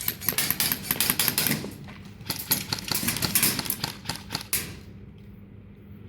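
Airsoft guns firing rapid strings of shots in close-quarters play, the sharp snaps coming in quick clusters and stopping about four and a half seconds in.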